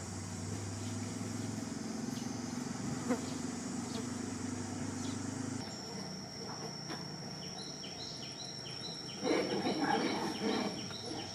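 A steady high-pitched insect chorus, with a low hum that stops about halfway through. About nine seconds in comes a louder flurry of short chirps and rustling.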